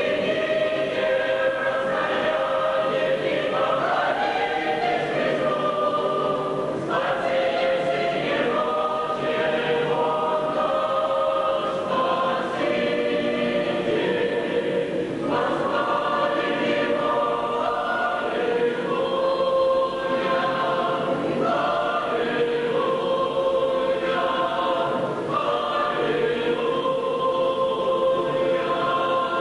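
A church choir singing a hymn in long, held notes.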